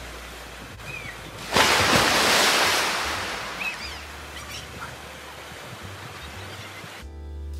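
Water gushing out of the end of a tube water slide into a swimming pool, with a sudden louder rush of splashing about a second and a half in, as from a rider shooting out into the water. Music comes in near the end.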